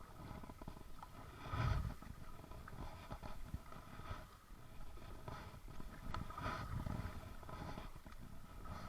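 Kayak paddle strokes in lake water, a swell of splashing about every second, with a low rumble of wind on the microphone.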